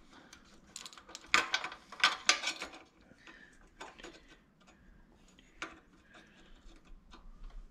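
Light metallic clicks and taps from small throttle-linkage parts as the throttle rod is hooked into the carburetor's throttle arm on a Predator 212 engine. A few sharper clicks come in the first three seconds, then scattered fainter ones.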